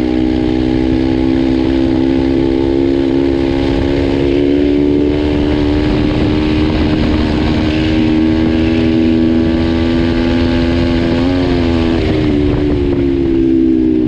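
Turbocharged pit bike's single-cylinder Loncin four-stroke engine running under steady throttle while riding, its pitch creeping up slowly. About eleven seconds in the pitch dips and wavers briefly before settling. Wind rushes over the microphone.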